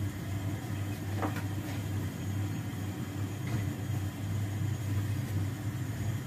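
Steady low rumble of a lit two-burner gas stove, with a faint light clink about a second in.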